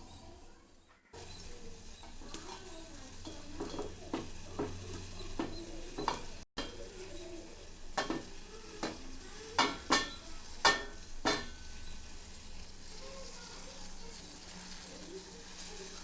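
Utensil-and-pot kitchen sounds as tea ingredients are put into a pot of water and stirred: scattered clinks and taps, with a cluster of sharper taps about eight to eleven seconds in.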